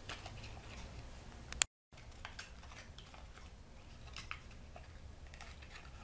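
Faint scattered clicks and crinkles of stiff paper being folded and pressed between fingers while a small paper chimney is shaped. A sharp click comes about one and a half seconds in, and the sound drops out for an instant just after it.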